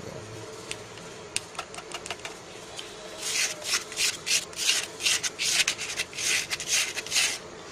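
Plastic spoon scraping powdered herbs out of a stone mortar. A few light clicks come first, then from about three seconds in a run of quick rasping scrapes, about two a second.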